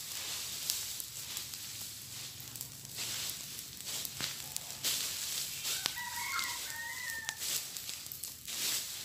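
Dry leaves and brush burning, crackling steadily, with a rooster crowing once about six seconds in, a crow lasting about a second and a half.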